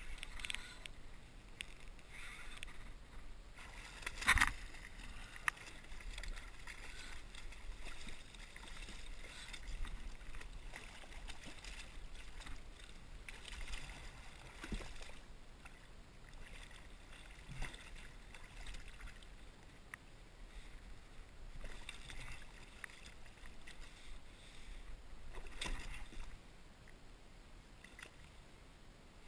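Water lapping and splashing at the side of a plastic kayak as a hooked striped bass is brought alongside, with scattered short knocks, the sharpest about four seconds in.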